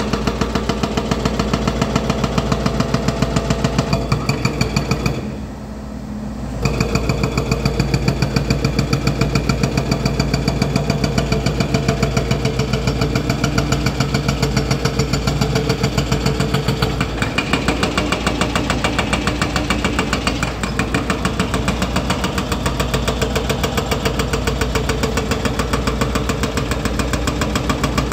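Hydraulic breaker on a Volvo EC210D excavator hammering rock: a fast, even train of blows over the steady drone of the excavator's diesel engine. The hammering stops for about a second and a half about five seconds in, then resumes.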